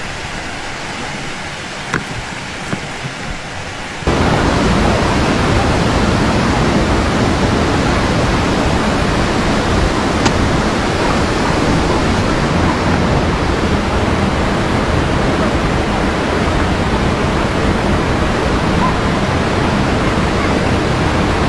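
Steady rushing noise with no pitch to it, like fast water or wind on the microphone; it jumps much louder about four seconds in and stays that way, with a few faint clicks before the jump.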